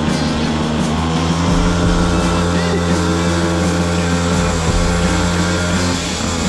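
Small 50cc two-stroke pocket bike engine running at steady high revs, heard from on board the bike during a race.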